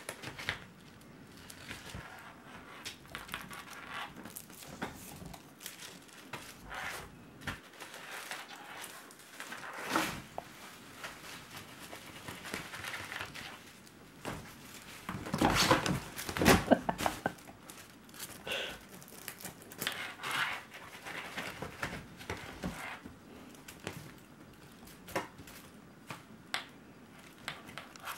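Kittens scrambling in and around a fabric pop-up play tent: irregular rustling and crinkling of the tent fabric with scrabbling paws, and a louder flurry about halfway through.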